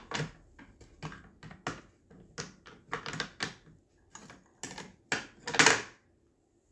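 Small scissors snipping white nail-art film into thin strips: a run of sharp, irregular clicks, two or three a second, stopping about six seconds in.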